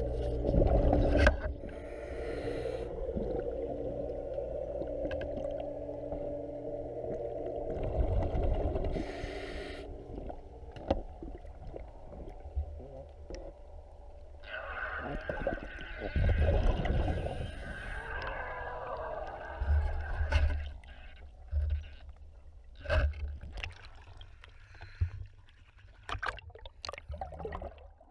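Underwater sound of a scuba diver's regulator breathing, with exhaled bubbles gurgling. A low rumble and droning tones run under it, with scattered knocks against the camera housing.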